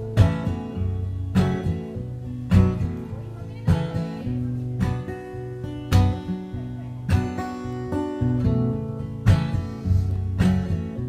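Acoustic guitar strummed in a steady, slow rhythm, a strong strum about once a second with lighter strokes between and low bass strings ringing underneath: an instrumental introduction with no singing yet.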